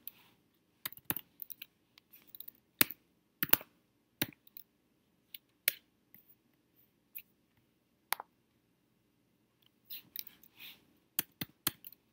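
Computer keyboard keys and mouse buttons clicking at an irregular pace, with a quicker run of keystrokes near the end, over a faint low hum.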